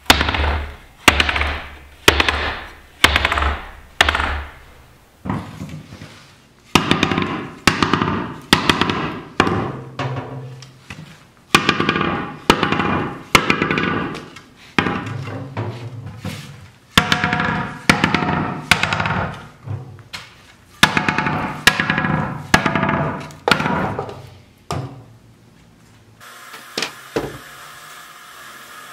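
Wooden-spoked buggy wheels with steel tires knocked down on a concrete floor, one sharp ringing knock about every second. The ring shows whether the steel tire sits tight on the wooden wheel: these wheels are heard both with loose tires and after the tires were reset. About 26 s in the knocks stop and a steady hiss begins.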